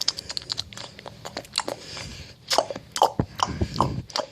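A person making wet mouth noises close to the microphone: a quick run of clicks, then fewer, louder smacks and pops from about halfway through.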